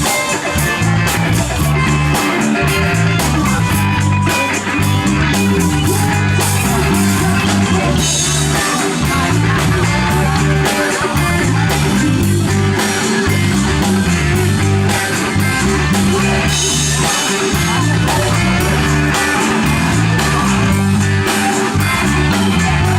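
Rock band playing live: guitar over bass notes and a steady drum beat.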